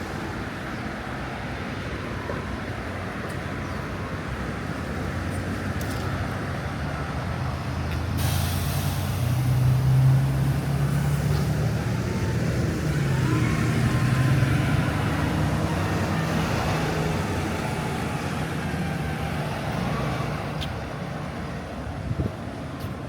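Street traffic with a heavy vehicle's engine rumbling past, loudest from about eight to fifteen seconds in. A sharp hiss of air starts about eight seconds in.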